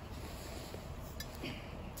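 Quiet outdoor background with a few faint clinks and a brief rustle about a second and a half in, as a stainless steel pot and a plastic water bottle are handled.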